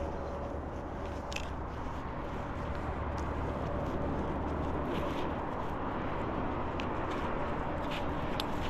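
A steady low engine hum, with a few faint clicks and knocks over it.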